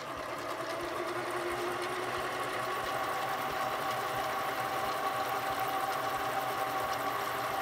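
Harbor Freight mini metal lathe running: its motor and gear train come up to speed in the first second, then hold a steady whine made of a few sustained tones.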